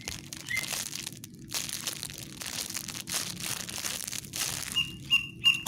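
Plastic wrapping crinkling and rustling in irregular bursts as squishy toys are handled. Near the end, a bird starts chirping in quick repeated high notes.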